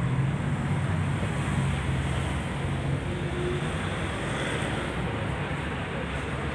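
Steady running noise inside a tram: a low hum over a constant rumble, with no clear events.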